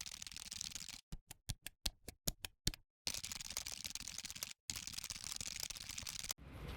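Dense, quick clicking and rustling handling noise, chopped by abrupt cuts into silence, with a run of very short snippets in the middle.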